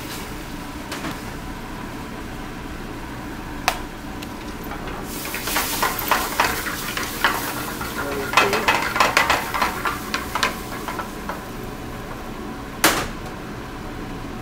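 Cherries jubilee sauce sizzling in a skillet on a gas range just after flambéing, with metal clatter and scraping as the pan is worked. Two sharp metal knocks, about 4 seconds in and again near the end.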